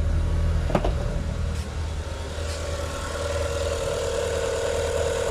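Great Wall Hover 3 engine idling just after its first start with a re-timed timing belt, running smoothly and quietly, 'whispering', with no knock. There is a single sharp click about a second in.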